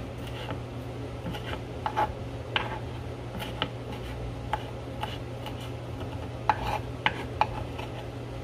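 Kitchen knife chopping fresh cilantro on a wooden cutting board: irregular taps and rubs of the blade on the board, with a few sharper knocks, over a steady low hum.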